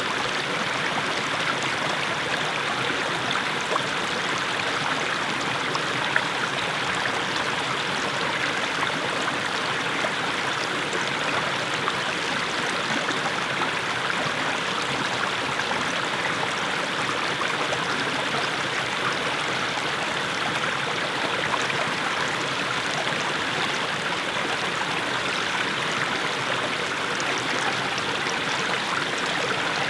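Small mountain stream splashing steadily over little steps of mossy stones.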